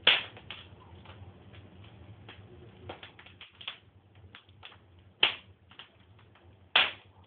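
Wood fire crackling, with three sharp pops standing out: one at the start, one about five seconds in and one near the end.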